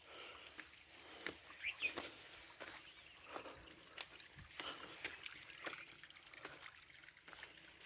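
Outdoor natural ambience: irregular sharp clicks and taps, with a few short high chirps, like small birds, over a faint hiss.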